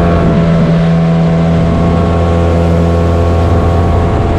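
Outboard motor running steadily at cruising speed, driving an aluminium fishing boat along the river, an even unchanging hum.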